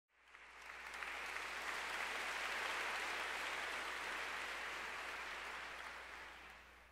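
Audience applause, swelling in over the first second and dying away near the end.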